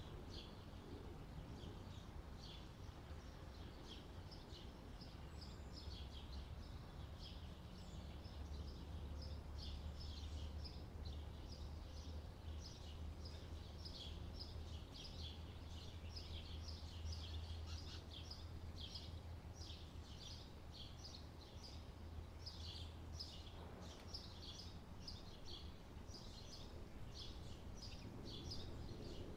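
Faint ambience of many small birds chirping, a dense run of short high calls, over a steady low rumble.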